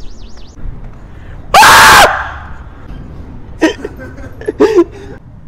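A person screaming once, very loud and clipped, for about half a second, about one and a half seconds in. A high warbling whistle fades out at the very start, and a few short vocal sounds follow near the end.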